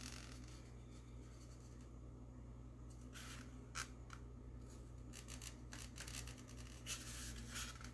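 Faint, irregular scratching of a fabric paint pen's tip drawn along a pumpkin's surface, tracing guide lines in short strokes.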